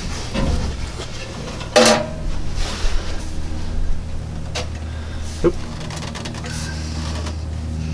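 Hands handling a metal exhaust vent pipe and its termination cap while a level is set on it: a sharp click about two seconds in, then scraping and a few light knocks, over a steady low hum.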